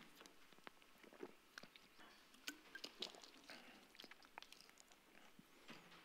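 Near silence with faint, scattered small clicks and crinkles from a plastic water bottle being handled.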